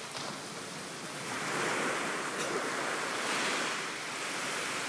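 Small waves breaking and washing up a sandy beach, the wash swelling twice.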